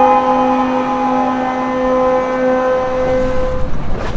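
A ship's horn sounding one long, steady blast that fades out about three seconds in, followed by wind rumbling on the microphone.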